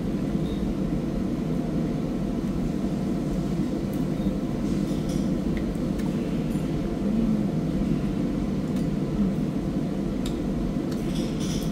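Steady low rumble of a restaurant's background noise, with a few faint clinks of glasses and tableware.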